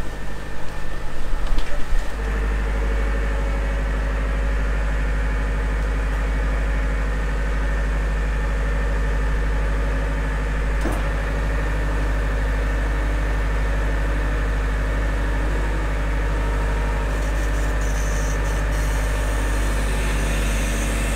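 Boat's generator running steadily with the watermaker working off it, a constant engine hum heard close by below deck. It takes over about two seconds in from wind and sea noise.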